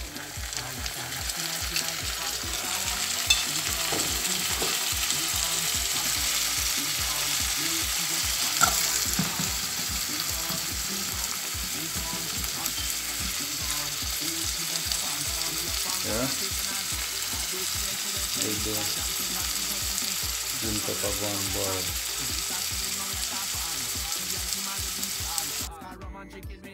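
Onion, garlic, scotch bonnet and freshly added green pepper sizzling in hot oil in a frying pan, with a few light clicks of a spoon stirring against the pan. The sizzle builds over the first few seconds, holds steady, and drops away suddenly near the end.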